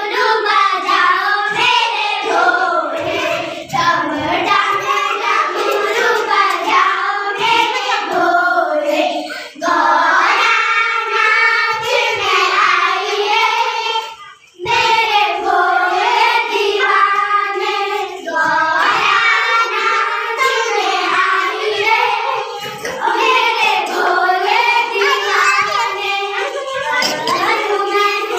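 A group of young girls singing a devotional bhajan together in unison, with hand clapping. The singing pauses briefly twice, the longer gap about fourteen seconds in.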